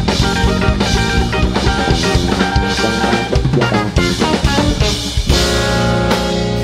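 Live instrumental rock trio of electric guitar, electric bass and drum kit playing in an odd time signature, with busy, fast-moving lines; about five seconds in the band settles on a held chord over a steady bass note.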